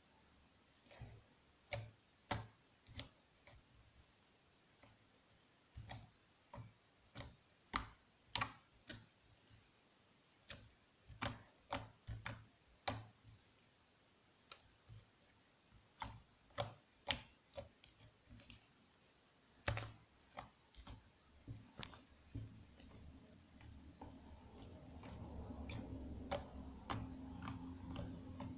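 Cloud slime being squeezed and poked, giving irregular sharp clicks and pops, about one or two a second. A low rumble rises under them in the last few seconds.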